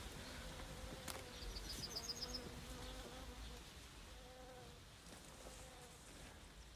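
Faint, wavering buzz of a flying insect, with a single click about a second in and a short run of high ticks just after.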